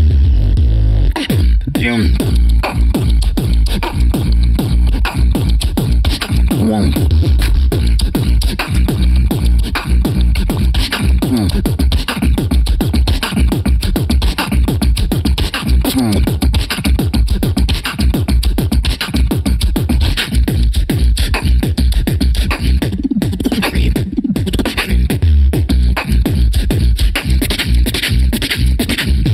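Human beatboxing into a handheld microphone: a fast, dense rhythm of deep bass kicks and sharp clicks, with some sliding pitched vocal sounds. There are short breaks about a second and a half in and twice a few seconds before the end.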